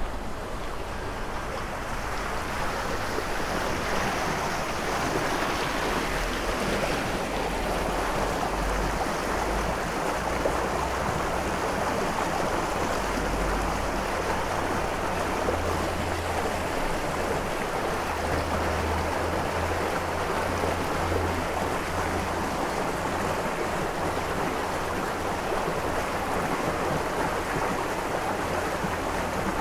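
Rushing water of a fast-flowing river, a steady rush that swells a little in the first couple of seconds and then holds even.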